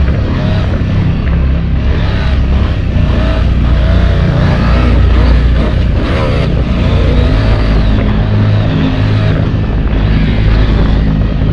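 Stock KTM 790 Adventure S's parallel-twin engine running under load, with the revs rising and falling as the bike is ridden along a dirt motocross track.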